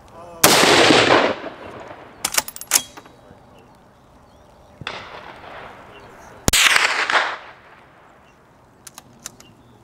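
Schmeisser SP15 straight-pull .223 rifle fired twice, about six seconds apart, each shot a sharp bang with a brief echo. Each shot is followed a couple of seconds later by quick metallic clicks as the straight-pull bolt is worked to chamber the next round. A fainter bang comes between the two shots.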